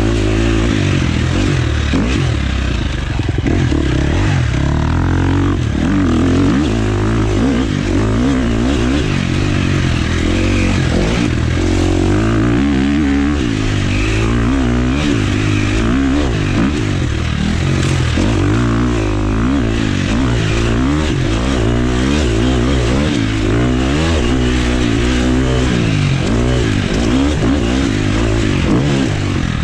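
Husqvarna FX 350 four-stroke single-cylinder dirt bike engine being ridden hard, its pitch rising and falling again and again with throttle and gear changes.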